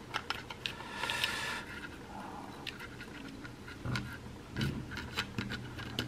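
Small plastic clicks, taps and scraping as the opened earcup of a Logitech H800 wireless headset is handled and its battery cable is pressed into place. There is a short rustle about a second in and a couple of soft knocks later on.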